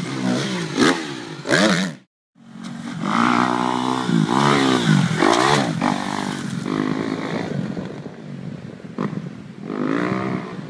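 Motocross dirt bike engine revving up and down through the gears on a dirt track. It breaks off for a moment about two seconds in, fades as the bike pulls away, and rises again near the end.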